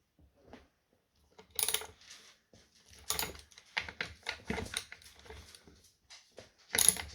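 Metal tools and hardware clinking and tapping at irregular intervals while the wheel's axle nuts are worked, with three sharper metallic clinks standing out: about one and a half seconds in, about three seconds in, and near the end.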